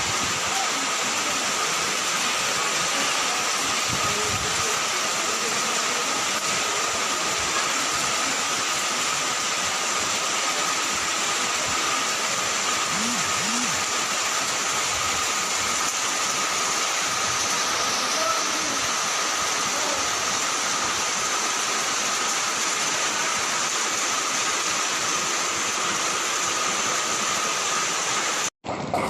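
Steady rushing noise of floodwater, even and unbroken, which cuts off abruptly near the end.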